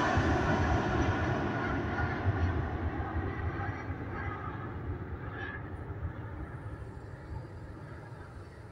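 Airbus A320's twin jet engines at takeoff thrust, a steady roar that fades away as the airliner climbs out after takeoff.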